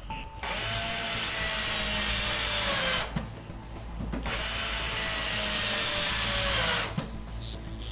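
Cordless drill driving screws into small metal brackets on a wooden cabinet panel: two runs of about two and a half seconds each, the motor whine falling slightly in pitch toward the end of each run before it stops.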